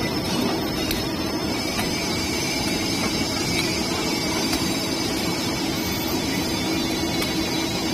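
Concrete square pile cage welding machine running: a steady mechanical noise with a constant low hum and a few faint ticks.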